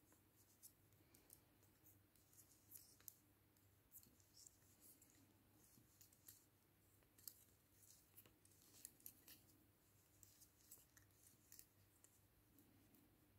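Faint, irregular light clicks of metal double-pointed knitting needles tapping against each other as stitches are worked, over a faint steady hum.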